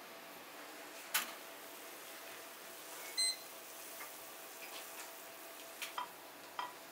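Kitchen utensil clicks and taps over a steady low hiss: a sharp click about a second in, a short ringing metallic clink a little after three seconds, then a few light ticks near the end.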